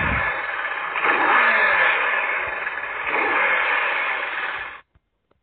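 Kawasaki Vulcan S motorcycle's parallel-twin engine revving in a recording, rising about a second in, then cutting off suddenly near the end.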